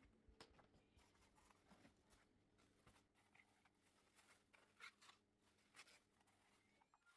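Near silence: quiet room tone with faint, scattered small clicks and rustles.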